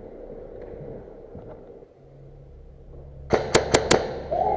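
Airsoft rifle firing a quick string of four shots, about five a second, near the end.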